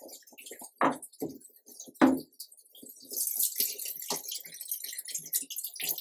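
Water from the washing machine's inlet valve running into the tub of a top-loading washing machine, a hiss of falling water that grows louder about three seconds in. Two sharp knocks come in the first two seconds.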